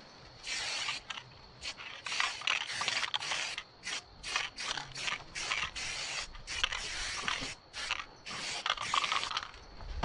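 Aerosol spray paint can hissing in many short bursts and several longer ones of up to about a second, with brief pauses between them.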